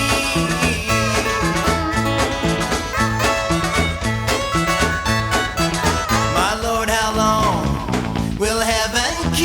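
Instrumental passage of a song: band music with a steady beat, bass and guitar.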